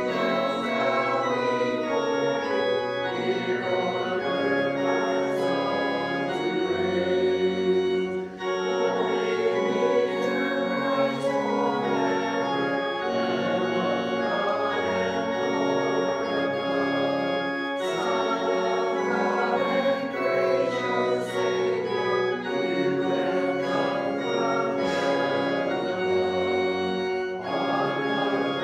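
Church organ playing a hymn in sustained, changing chords.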